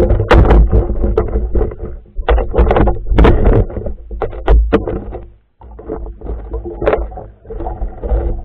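Underwater camera in a river picking up irregular knocks and clatter over a low rumble of water. The sounds briefly drop away about five and a half seconds in.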